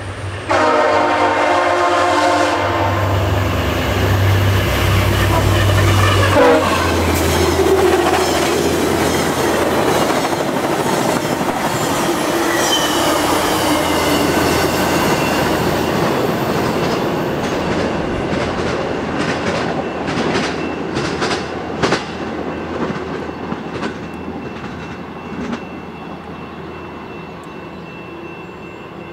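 VIA Rail F40PH-2 diesel locomotive sounds its horn for about two seconds, then its engine drones past at speed. A long string of passenger cars follows, wheels clicking over rail joints, fading as the train pulls away.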